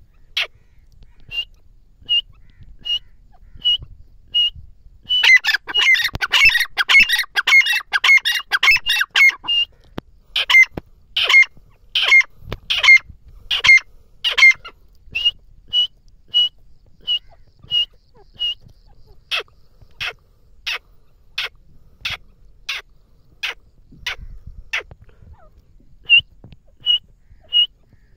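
Grey francolin (teetar) calling: short, sharp notes repeated about once every three-quarters of a second, with a fast, crowded run of notes from about five to nine and a half seconds in.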